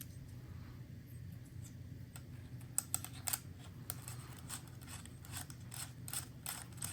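Small clicks and scrapes of the plastic and metal parts of a Milwaukee cordless soldering iron being handled and fitted back together, the clicks coming more often in the second half, over a steady low hum.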